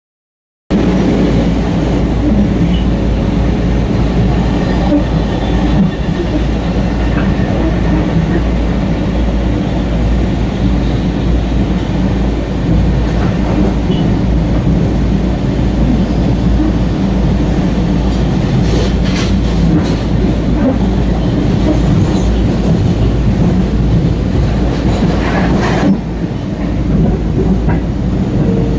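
Steady rumble and rail noise inside a moving Long Island Rail Road passenger car, with the wheels clicking over the rails, while another train runs on the next track.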